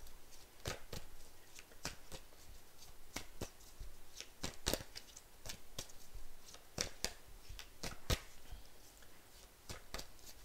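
Tarot cards being shuffled by hand: quiet, irregular taps and slaps of the cards against each other.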